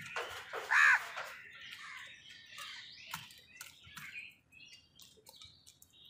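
House crow giving one loud, harsh caw about a second in, followed by softer, shorter calls and chirps, with a few faint clicks near the end.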